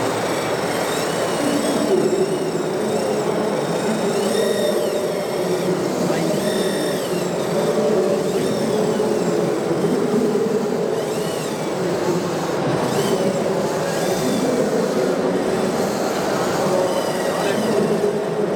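Motors and hydraulic pumps of large-scale RC construction machines running and whining, the whine rising and falling in pitch as they work, over a steady mechanical hum.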